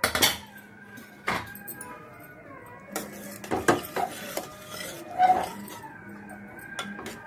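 Steel spoon clinking and scraping against the inside of a metal pressure cooker pot while stirring thick gravy, several separate knocks spread over the few seconds.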